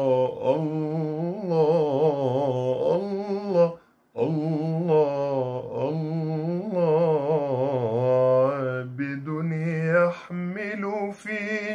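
A man singing inshad unaccompanied: long, ornamented phrases that bend and waver in pitch, with a short break for breath about four seconds in.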